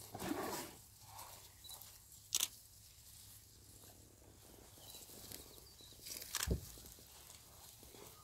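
Elephants walking past on dry grass and brush: soft rustling and scuffing footsteps. Two sharp knocks or snaps stand out, about two and a half seconds in and again about six and a half seconds in.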